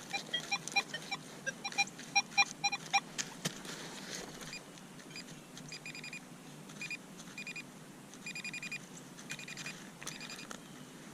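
Metal detector target beeps: a quick run of short beeps in the first three seconds, then clusters of shorter, higher chirps, signalling a buried metal target.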